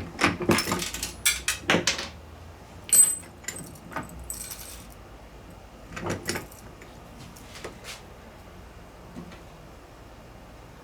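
Steel parts of an M5OD-R2 five-speed manual transmission clinking and clattering as it is taken apart by hand: a run of sharp clicks, a metallic ring about three seconds in, a short scrape, and another clatter around six seconds, then only faint ticks.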